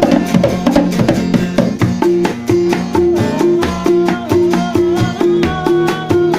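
Instrumental dangdut music: a kendang drum keeps a steady, driving beat under a plucked-string melody line.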